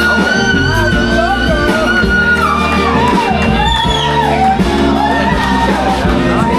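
Music: a singing voice holds long, wavering notes over a steady accompaniment.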